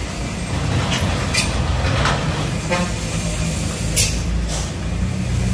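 Diesel engine of a loaded car-carrier truck running low and steady under load as it crawls round a steep hairpin bend, with several short hisses over it, the sharpest about four seconds in.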